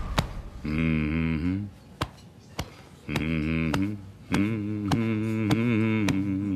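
A man humming a low, wavering chant in phrases while thumping his chest with his fist in a steady beat, about two thumps a second.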